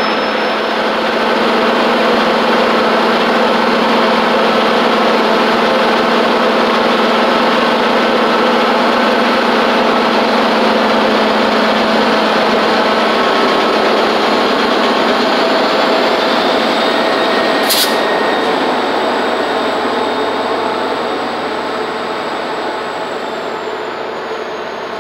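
MBTA commuter train's diesel locomotive and coaches rolling past, a steady engine drone with wheel-on-rail noise, fading as the train pulls away over the last few seconds. A single sharp click about three quarters of the way through.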